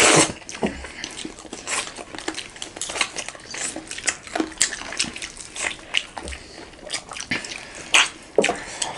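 Close-miked eating: two people chewing and smacking on crispy fried chicken, a steady stream of irregular wet mouth clicks and crackles.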